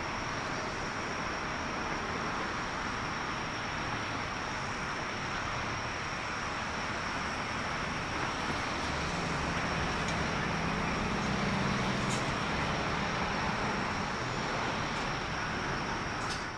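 Boeing 777-300ER's two GE90-115B turbofan engines at takeoff thrust as the airliner lifts off and climbs out: steady jet noise, with a deep rumble swelling from about nine seconds in and easing slightly near the end.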